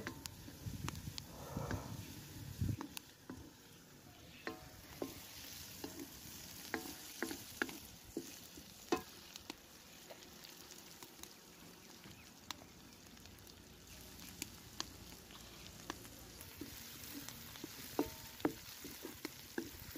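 Chopped onions with garlic, ginger and green chilli frying gently in mustard oil in a metal kadhai, a faint steady sizzle. A wooden spatula stirring the onions and scraping the pan makes scattered light knocks.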